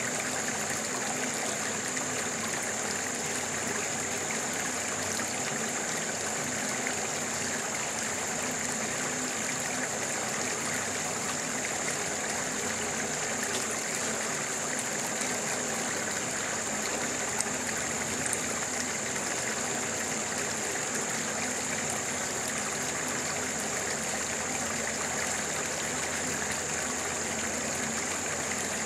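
A stream flowing steadily, a continuous rush of water, with a thin high-pitched tone held steady above it.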